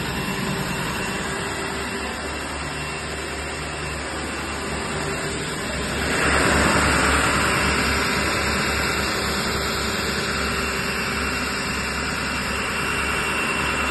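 Houfek Buldog 3 wide belt sander running with a 120-grit belt on its calibration roller, over a steady low motor hum. About six seconds in, a louder, hissier sanding noise sets in as a board is fed under the sanding head, then eases off slowly.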